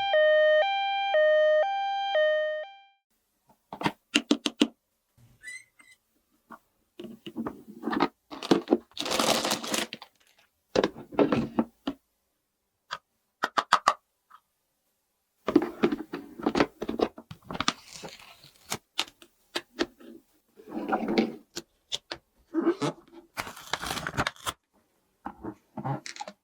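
Plastic toy pieces and packaging being handled: scattered clicks, taps and short rustles with quiet gaps between them. At the start, a two-note electronic tone alternates high and low and stops about two and a half seconds in.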